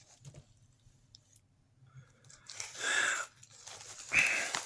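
Packaging of a military ration meal being handled and torn, two short bursts of rustling and tearing about three and four seconds in.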